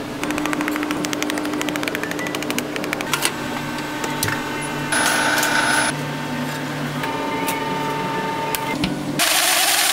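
Kitchen machinery: a fast, even mechanical clicking for about three seconds, then a steady hum with a short hiss about five seconds in, and a louder hiss starting near the end.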